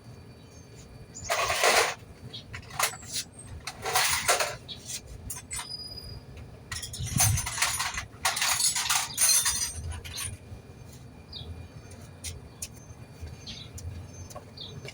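Someone rummaging through tools for a wrench: four short bursts of scraping and rattling, with scattered clicks between them.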